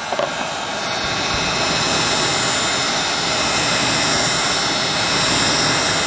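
A Wagner Furno 300 heat gun blowing hot air steadily, its fan and airflow making a loud even rush that gets a little louder about a second in. It is heating a watch bezel insert to soften the adhesive underneath.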